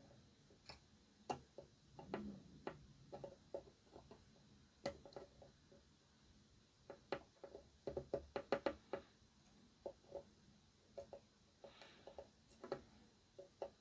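Faint, irregular clicks and taps of small tools and parts being handled on a workbench, with a quick flurry of them about halfway through.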